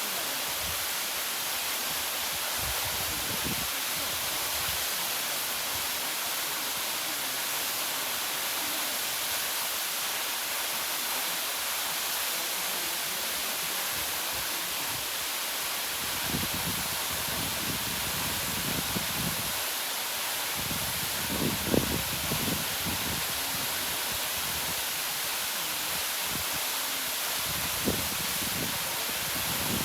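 Marymere Falls waterfall: a steady rush of falling water. Low rumbling surges hit the microphone a few times in the second half.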